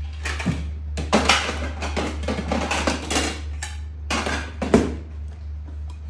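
A metal spoon scraping and clinking irregularly against a stainless steel bowl as a monkey digs at its food, with the loudest clatters about a second in and near the end.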